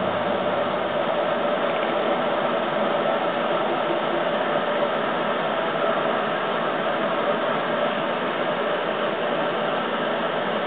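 Steady interior noise of a former Kintetsu 16000 series electric train car, an even rush and rumble with no distinct events.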